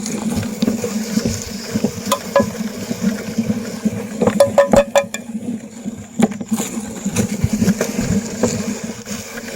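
Meat grinder crushing mini ice cream cones: dense crunching and crackling over a steady low hum, with a burst of sharper cracks about halfway through.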